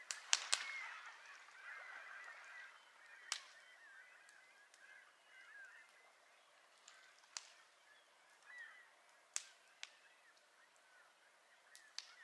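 A flock of birds calling: many short, wavering calls overlapping at first, then thinning out to scattered single calls. A few sharp pops from the campfire crackle through them.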